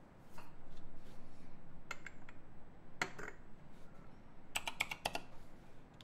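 Typing on a Klippe T R4 mechanical keyboard with stock Mauve switches, an aluminium plate and GMK keycaps. A few separate keystrokes come about two and three seconds in, then a quick run of about six keystrokes near the end.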